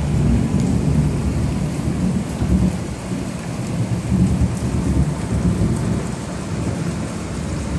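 Rolling thunder rumbling over steady rain, the rumble swelling and easing several times.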